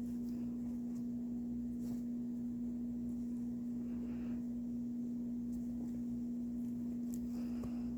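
A steady low electrical hum, with faint rustles and soft handling noises from working a doll's body and stuffing by hand.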